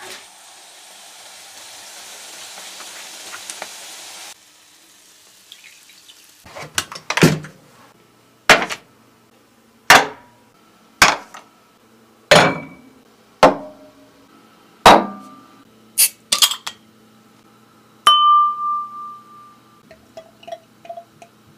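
Battered strips sizzling in hot oil for about four seconds, then a run of about ten loud, sharp clinks and knocks of dishes being set on a table. Near the end comes a single ringing clink that dies away, and then faint trickling as beer is poured into a glass.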